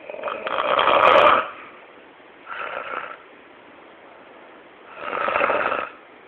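Snoring: three separate snores, the first and longest about a second in, a shorter one near the middle and another near the end.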